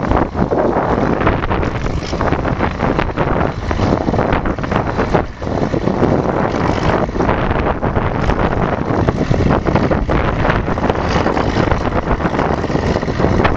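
Wind buffeting the microphone, with a crawler tractor running underneath as it pulls an earth scraper.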